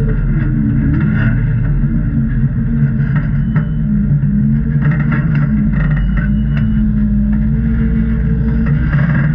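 Off-road vehicle engine running at a rock crawl, its pitch rising and falling as the throttle is worked, with a few sharp clicks or knocks.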